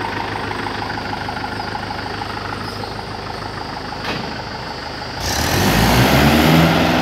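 Mahindra tractor's diesel engine idling steadily, with a brief click about four seconds in. About five seconds in it revs up as the tractor pulls away, its note rising and then holding steady and louder.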